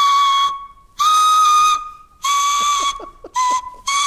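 A standard water tap with a hole made in it, blown as a wind instrument: a breathy, whistle-like tune of about five notes close together in pitch, the first ones held and the later ones shorter.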